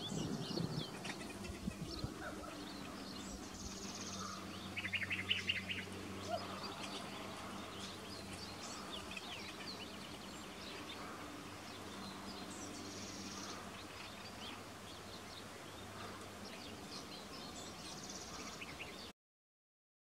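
Several wild birds calling and singing in open woodland, short high notes scattered throughout. There is a rapid chattering trill about five seconds in and a few high buzzy notes. The sound cuts off about a second before the end.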